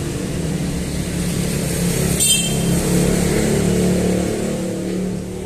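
An engine running steadily, a low hum that does not change, with a brief quick rattle of small clicks about two seconds in from handling the phone's circuit board.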